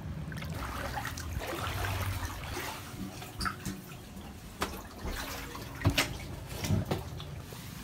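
Floodwater sloshing and splashing around someone wading through it, with a few sharp knocks in the second half.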